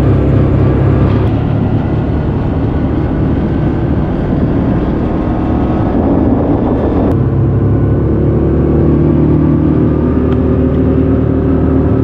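Side-by-side UTV engine running steadily as it drives along a gravel lane, with an abrupt change in its sound about seven seconds in.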